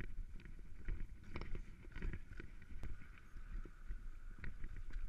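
Mountain bike rolling fast down a rocky trail: a steady rumble of tyres over stone and gravel with frequent knocks and rattles from the bike as it hits rocks.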